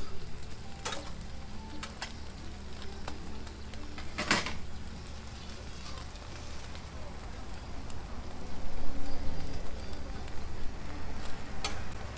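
Egg-and-cabbage toast patties sizzling on a flat-top griddle, under a steady low hum. A metal spatula knocks on the griddle a few times, loudest about four seconds in.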